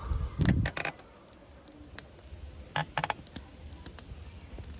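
Freshly lit campfire of crumpled paper and small twigs crackling with scattered sharp pops. Two louder clusters of knocks come about half a second in and about three seconds in.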